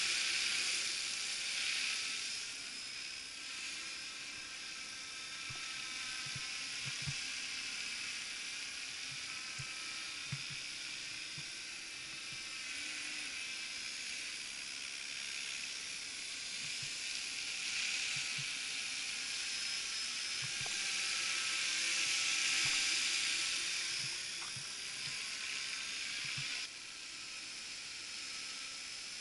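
Electric 450-size RC scale helicopter (RotorScale MD 500) in flight: the high-pitched whine of its motor and rotors, its pitch slowly rising and falling, swelling louder as it passes closer. The whine drops suddenly near the end.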